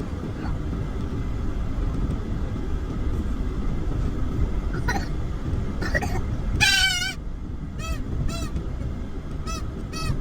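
An animal calling over a low steady rumble: one loud, wavering call about two-thirds in, followed by a few short calls.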